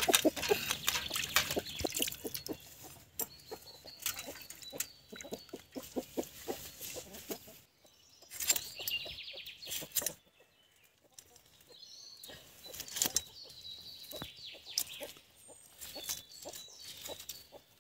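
A fish being scaled and cut on a bonti, a curved floor-mounted blade: irregular short scraping clicks as the fish is drawn against the edge, going quiet for a few seconds partway through.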